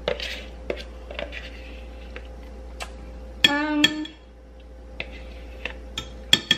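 Metal spoon scraping and clinking against a glass measuring cup and a plastic yogurt tub while thick yogurt is scooped: scattered light clicks and taps. A brief pitched hum, the loudest sound, comes about three and a half seconds in.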